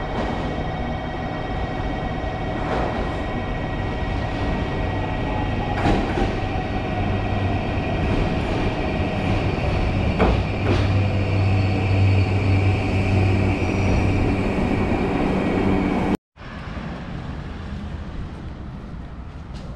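Electric commuter train pulling into a station platform: a steady rumble with a few clacks of wheels over the rails and a motor whine that falls slightly as it brakes, plus a low hum that is strongest in the middle. It cuts off abruptly near the end, and quieter street noise with wind on the microphone follows.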